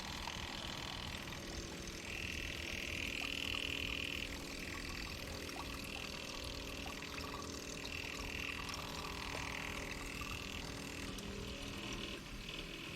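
Gasoline draining from a Honda Helix scooter's fuel tank into a jug, a steady pouring stream that swells and eases several times.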